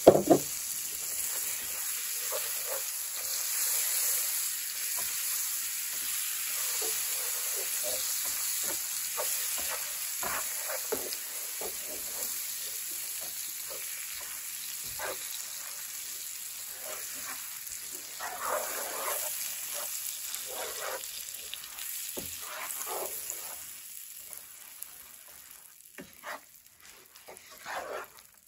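Hot sugar-and-peanut brittle mixture sizzling in a nonstick frying pan, with baking soda just stirred in, while a wooden spatula stirs and scrapes through it in many short strokes. The sizzle fades over the last few seconds, leaving scattered scrapes and taps of the spatula.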